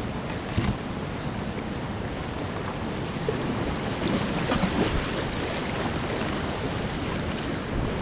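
Rushing whitewater of a river rapid heard close up from a kayak, with a few paddle-stroke splashes and wind buffeting the microphone.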